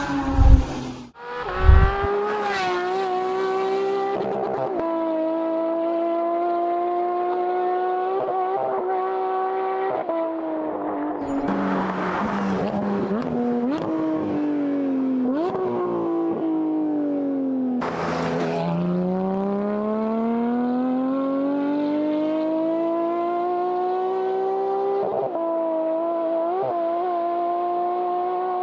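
Porsche GT4 RS's naturally aspirated 4.0-litre flat-six, through a valved aftermarket exhaust, running hard at high revs, its pitch dropping about ten seconds in and falling away deeply around eighteen seconds before climbing again. Two loud low thuds come in the first two seconds.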